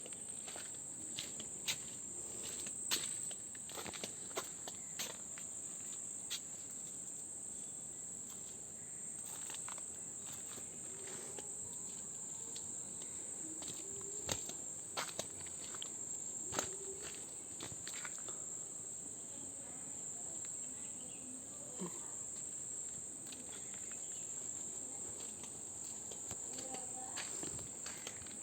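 Steady high-pitched insect chorus, a continuous shrill chirring, with scattered short sharp clicks and taps over it.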